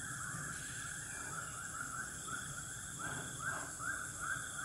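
A rapid series of short, arched animal calls, about three a second, getting louder in the last second or so, over a steady high-pitched drone.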